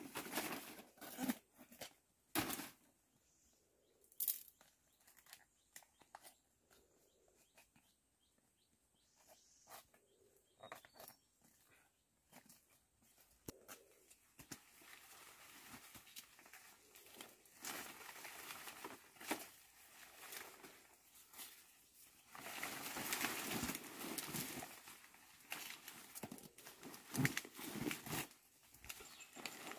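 Dong leaves and stems rustling and crackling as bundles of them are handled and tied, with a few sharp snaps in the first few seconds and denser rustling in the second half.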